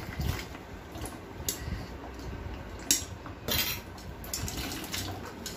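Steel spoon scraping and clinking against a stainless steel mesh sieve as soaked, ground wheat pulp is pressed through it to wash out the starchy wheat milk. There is one sharp clink about three seconds in, followed by a longer scrape.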